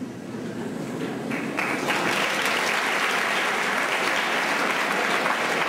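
Audience applauding, building up about a second and a half in and then holding steady.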